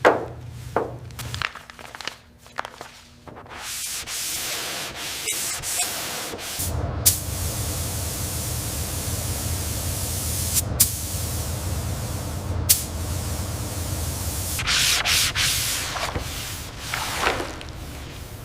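Sanding: rubbing strokes at first, then a power tool running steadily with a low hum and sanding hiss for about eight seconds, broken by a few sharp clicks, and more rubbing strokes near the end.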